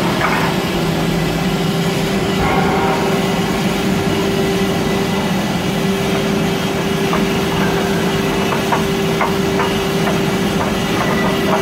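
Pneumatic refractory-ramming vibrator running inside an induction furnace shell, compacting the bottom lining material. It gives a steady, even-pitched hum over a broad hiss.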